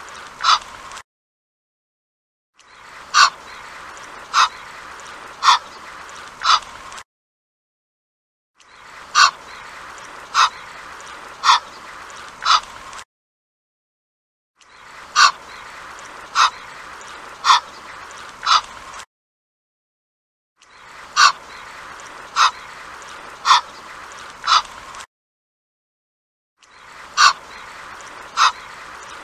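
Egyptian goose calling: short, sharp calls about a second apart in groups of four, each group followed by a short silence, the pattern repeating over and over.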